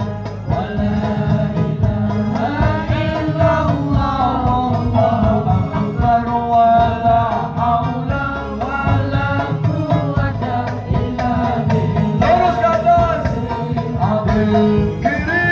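Sholawat, Islamic devotional songs, sung with instrumental accompaniment: a melody of voices carried over steady sustained low notes.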